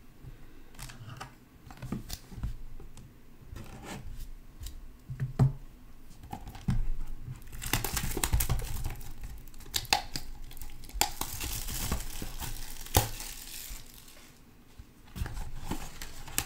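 Trading card packs and their wrapping being torn open and crinkled by hand, the rustling strongest around the middle, with a few sharp handling clicks.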